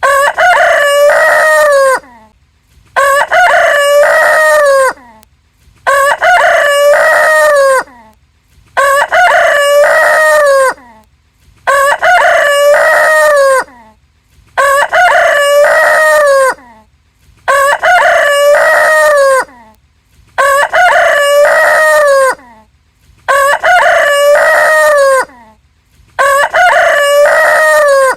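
A rooster crowing cock-a-doodle-doo, the same crow repeated about ten times, roughly one every three seconds, each about two seconds long with a short silence between.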